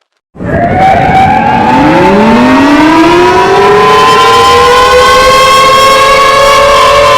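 Civil defense siren starting abruptly and winding up: several tones rise in pitch over the first couple of seconds, then hold steady and loud. It is the alert tone of a mock Emergency Alert System alarm.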